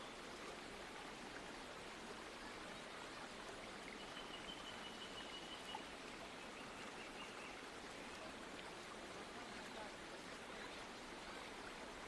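Faint, steady rush of falling water from Katiki waterfall.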